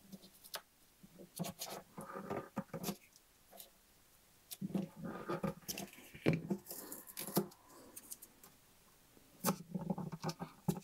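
Light, scattered clicks, taps and rustling as small parts are handled and fitted by hand against a wooden box, with a few soft knocks of wood and plastic.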